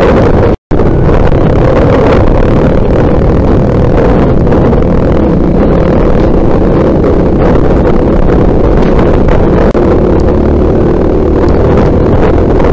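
Trail motorcycle engine running steadily while riding, mixed with heavy wind rush on the mounted camera's microphone. The sound cuts out for an instant about half a second in.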